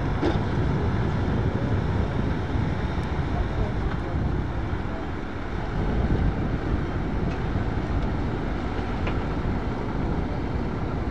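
JCB backhoe loader's diesel engine running steadily as the machine works the runway surface with its front bucket, a low, even rumble.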